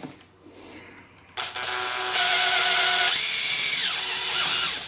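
Power drill boring into aluminium, its motor whine starting about a second and a half in, stepping up in speed and loudness about two seconds in, easing off near the end and stopping.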